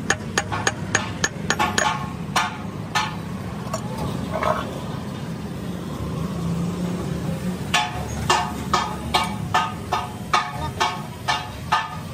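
Hammer blows on metal, about four a second at first, slowing and stopping after about three seconds, then starting again near eight seconds at about three a second, each with a short ringing tone. A low steady hum runs underneath.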